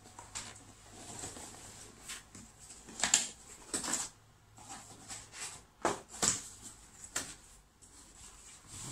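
A cardboard laptop box being opened by hand. Tape is pulled and the flaps scrape and rustle in irregular bursts, the loudest about three seconds in and again around six seconds.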